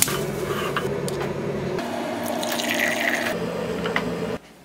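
Hot water or tea being poured into a cup, a steady liquid sound that drops away sharply near the end.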